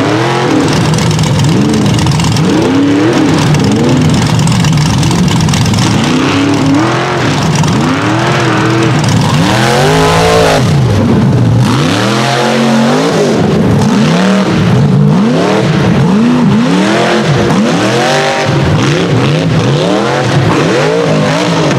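Rock bouncer buggy engines revving hard in repeated bursts, the pitch rising and falling about once a second as the drivers work the throttle up a slick rock hill. A cut about halfway through brings in a second buggy, whose revs come quicker near the end.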